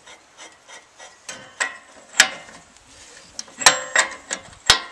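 Ratchet wrench and socket working a nut on a bolt in a steel bridge beam: a series of irregularly spaced sharp metallic clinks and clanks that ring briefly, the loudest a little past two seconds in and twice near the end.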